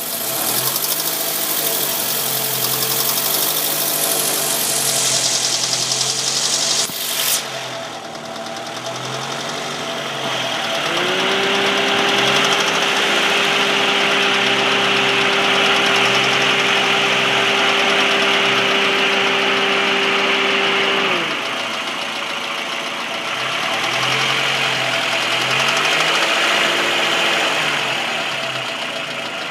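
Car engine idling with a ticking noise. About ten seconds in it is revved and held at a steady higher speed for about ten seconds, then drops back to idle.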